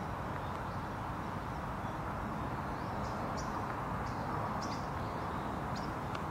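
Outdoor ambience: a steady background hiss with a few short, high bird chirps scattered through it, around three, four and a half and six seconds in.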